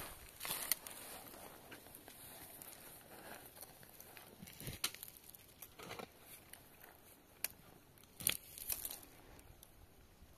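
Shovel blade scraping and crunching into dry, stony soil as earth is dug out and thrown, in uneven strokes, with louder hits about a second in and again about eight seconds in.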